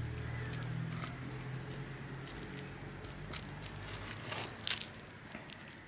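A knife's serrated scaler spine scraping scales off a carp on a wooden cutting board: scattered light scrapes and crackles as the scales flick off. A faint low hum fades out about two seconds in.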